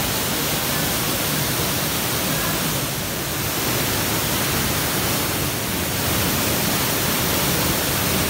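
Waterfall plunging into a rock pool close by: a steady rushing of falling water.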